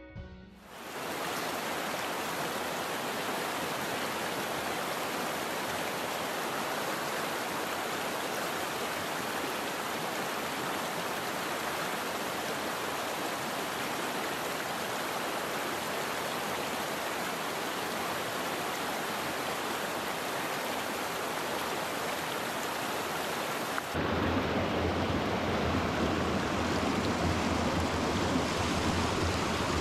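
Small rocky mountain stream rushing and tumbling over boulders and little cascades, a steady full rush of water. Near the end it becomes a little louder and deeper, as if heard closer to the water.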